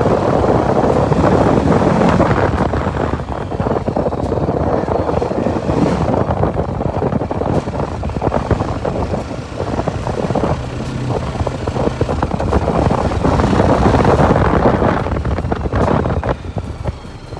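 TVS Apache RTR 310's 312 cc single-cylinder engine running as the motorcycle is ridden on the road, with wind rushing over the microphone. The noise swells and eases, loudest again about three-quarters of the way through.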